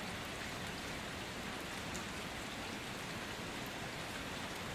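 Steady falling rain, an even, continuous hiss of rain on a surface.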